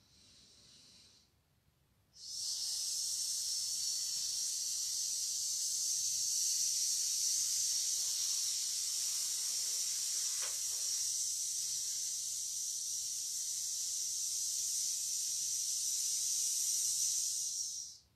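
A woman's long, steady hissed 'sss', the healing sound of the Metal element in Do-In, made while slowly breathing out. It starts about two seconds in, is held on one breath for about sixteen seconds, and stops suddenly near the end.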